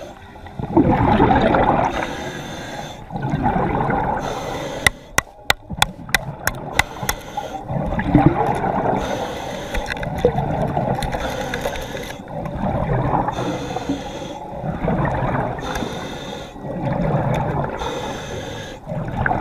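Underwater water noise during a conch dive, swelling and fading every couple of seconds, with a quick run of sharp clicks about five seconds in.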